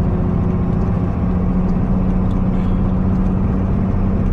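Truck engine running with a steady low drone, heard from inside the cab.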